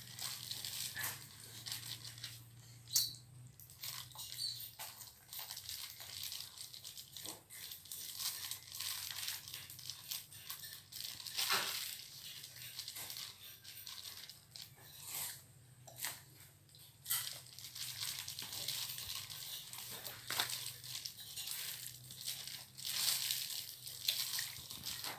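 Thin plastic bag crinkling and rustling as it is handled and filled with bilimbi fruit and flowers, with irregular small crackles and a few sharper clicks.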